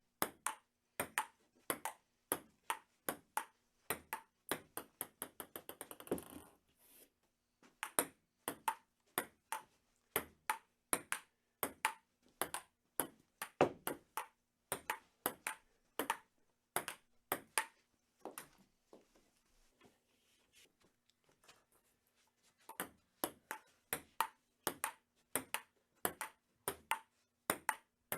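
Table tennis rally: a ping-pong ball clicking regularly off paddles and table, about two to three hits a second. About six seconds in, a ball bounces faster and faster until it settles. Later, a few seconds of only faint scattered taps come before the rally picks up again.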